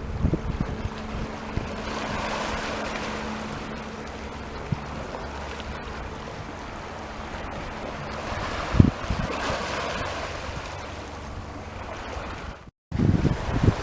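Sea waves washing onto the shore, swelling about two seconds in and again around nine seconds, with wind gusting on the microphone. The sound drops out for an instant near the end.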